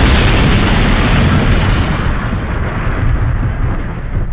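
Explosion sound effect: a loud rumbling blast that fades slowly.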